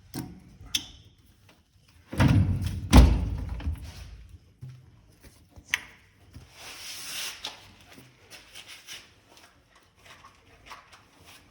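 Work-handling noise: knocks and clatter with one heavy thunk about three seconds in, then scattered clicks and a short hiss.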